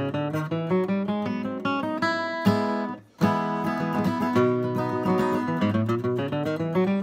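Steel-string acoustic guitar flatpicked in a fast run of single notes. The run breaks off briefly about three seconds in, then starts again.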